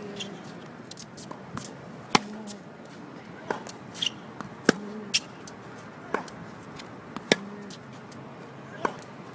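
Tennis ball struck by a racket again and again on a hard court, with the ball bouncing: sharp, strong hits about every two and a half seconds, with fainter hits and bounces in between.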